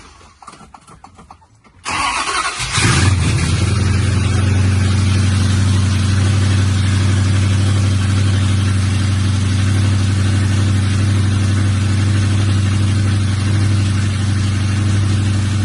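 1969 Plymouth Road Runner's V8 cranked by the starter and catching about three seconds in, then idling steadily with a deep, even note until it stops near the end.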